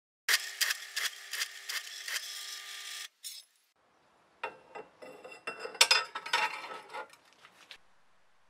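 Drill press bit cutting into a steel sprocket: a steady whine with a regular chatter, about three clicks a second, that stops abruptly about three seconds in. After a short gap comes a stretch of irregular metallic clatter and scraping.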